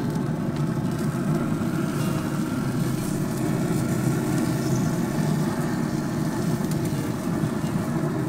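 Gas grill burners running: a steady, even low rush with no breaks.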